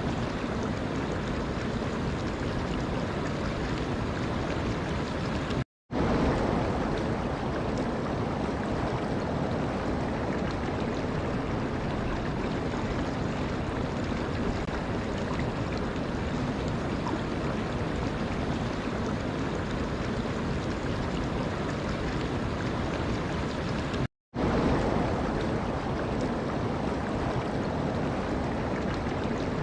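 Steady rushing of running water, breaking off for a split second twice, about six seconds in and again near the end, where recordings are joined.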